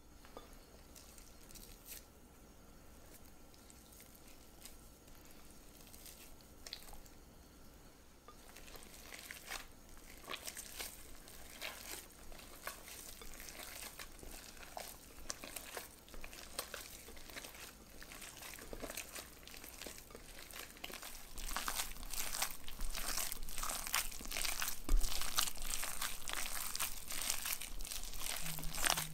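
Gloved hands mixing wet, sticky dough in a glass bowl: the disposable plastic gloves crinkle and the dough squelches in irregular little crackles. It is faint at first, gets busier after several seconds, and is louder over the last third.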